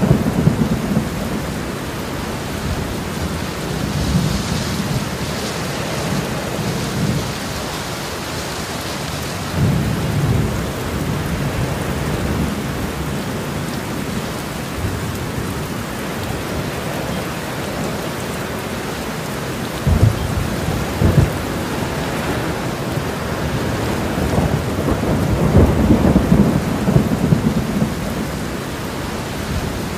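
Thunderstorm: rain falling steadily, with low rolls of thunder several times and two sharper claps about twenty seconds in.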